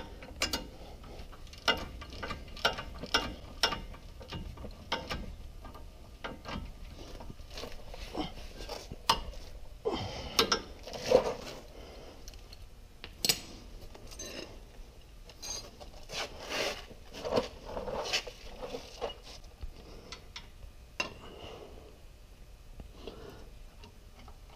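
Hand ratchet clicking in short irregular runs while the brake caliper bolts are tightened, with clinks of metal tools and parts.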